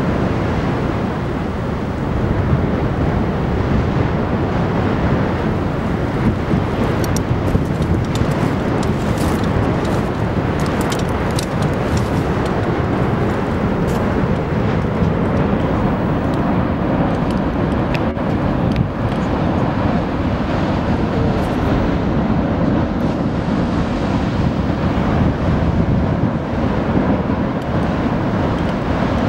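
Steady, loud roar of Benbow's churning lava lake throwing up spatter, with faint crackles through the middle.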